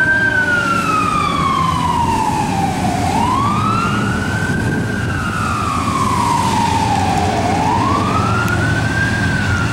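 E-One aerial ladder fire truck's siren wailing. It sweeps quickly up and then slowly down, repeating about every four and a half seconds over a steady low rumble.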